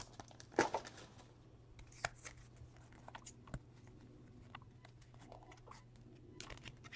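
Baseball cards being handled and slid through the hands, giving a few soft clicks and rustles over a faint steady low hum.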